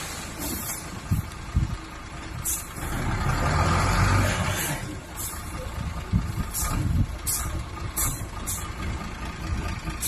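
Dump truck engine running while its raised bed tips out a load of sand, the sand pouring with a swell of rushing noise around the middle. Short sharp hisses recur about eight times.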